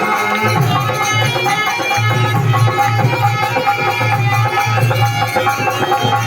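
Indian folk music with a steady drum beat under a melody, playing as accompaniment to a puppet dance.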